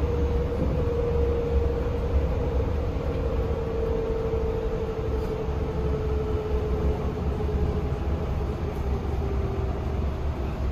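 Yutong E12 battery-electric bus driving, heard from inside the cabin: a steady low rumble of the bus on the road, with a single electric-drive whine that slowly falls in pitch.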